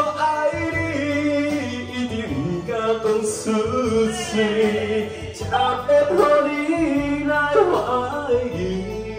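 A man singing a Taiwanese Hokkien love song into a microphone over a karaoke backing track, with long held notes, through the hall's PA speakers.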